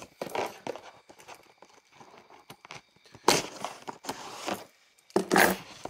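Packaging of a knife's retail box being torn open and handled: short rustling, tearing bursts, the loudest about three seconds in and again near the end.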